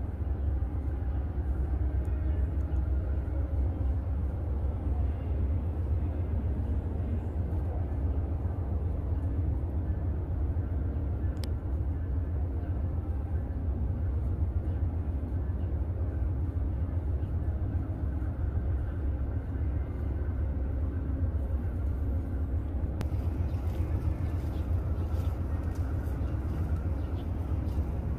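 Steady low rumble of an Amtrak GE P42DC Genesis diesel locomotive leading a passenger train as it approaches slowly.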